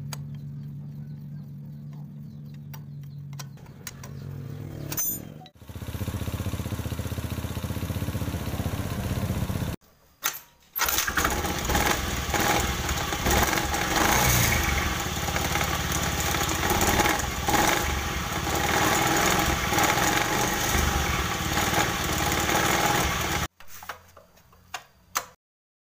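Engine of a fuel-injected Honda automatic scooter running and being revved, loud for most of the time, in a clip that demonstrates 'gredek', a judder on pulling away. It is interrupted by abrupt cuts, with a quieter low hum at the start and a few clicks near the end.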